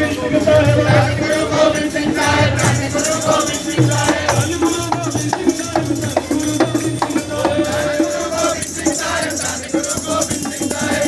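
Sikh devotional kirtan music: sustained melodic tones over a drum beat of about one stroke a second, with rattling, jingling hand percussion.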